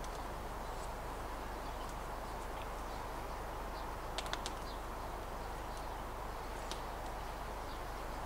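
Steady woodland background hiss with a few faint, short bird chirps, and a quick run of three sharp clicks about four seconds in.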